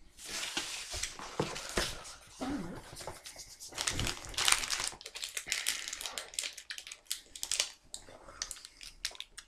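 Plastic sweet wrappers crinkling and rustling as they are handled, with irregular crackles and clicks, loudest a little under halfway through.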